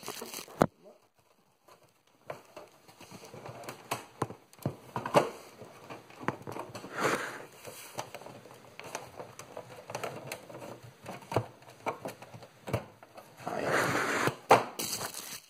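Close handling noises: scattered clicks and knocks with stretches of rustling, after a near-silent second and a half at the start, the longest rustle near the end.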